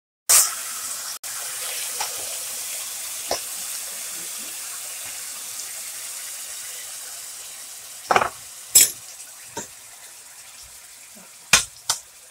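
Pork belly sizzling in a hot stainless steel pan as coconut milk goes in: a loud hiss begins suddenly and slowly dies down. Near the end a metal spoon knocks and scrapes against the pan several times as the mixture is stirred.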